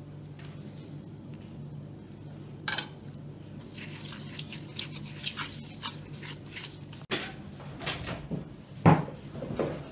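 Kitchen work sounds: scattered clicks and taps of utensils and dishes being handled, with a louder knock and some clatter near the end, over a steady low hum.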